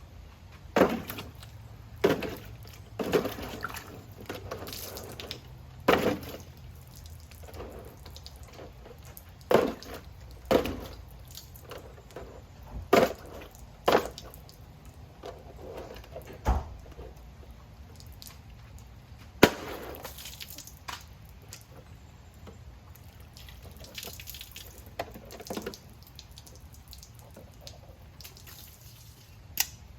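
Krate Tactical 'The Ghost' double-action OTF knife being fired and retracted, giving a series of sharp snaps as the blade shoots out of the front of the aluminium handle and springs back. The snaps are irregularly spaced, about a dozen of them, with gaps of one to several seconds.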